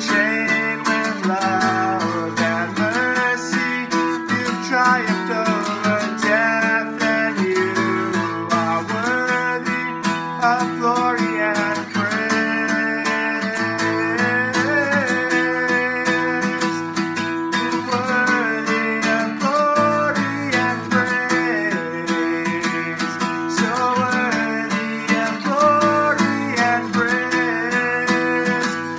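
A man singing a worship song while strumming an acoustic guitar, with a steady strummed rhythm under his voice.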